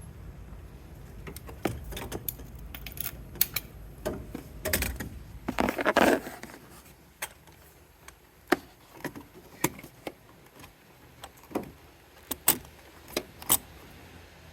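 Scattered sharp metallic clinks and clicks of hand tools and compression-test fittings being handled at the engine. There is a short louder rush about six seconds in, where a low hum underneath stops.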